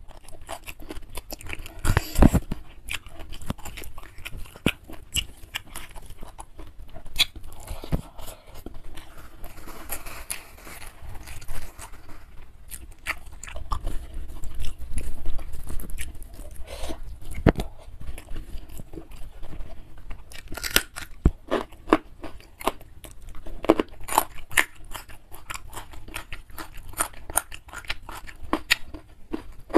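Close-miked chewing and crunching of a mouthful of nasi padang eaten by hand, with irregular wet mouth clicks and smacks, and fingers squishing and mixing the rice on a banana leaf.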